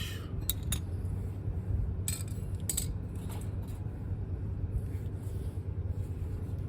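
A few light metallic clinks of hand tools or small metal parts being handled, over a steady low hum.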